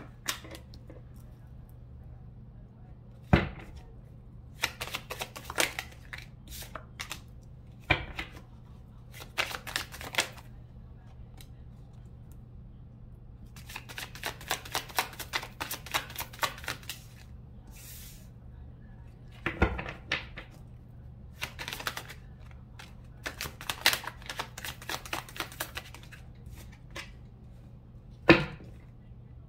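Tarot cards being shuffled and dealt onto a tabletop: runs of quick papery clicks from the deck, broken by a few single sharper slaps as cards are set down, the loudest near the end.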